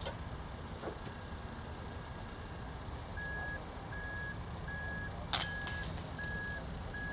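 Construction equipment's backup alarm beeping steadily, about one and a half beeps a second, over a low engine rumble; the beeping starts a few seconds in. About five seconds in, a single sharp metallic clash with a short ringing tail: a putter disc hitting the chains of a disc golf basket.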